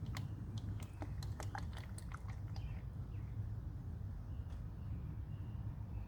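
Motor oil being poured slowly from a jug through a funnel into the engine: irregular soft glugs and clicks, thicker in the first half, over a steady low rumble.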